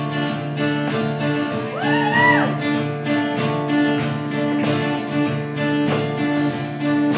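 Acoustic guitar strummed steadily in an instrumental break between sung lines of a country song.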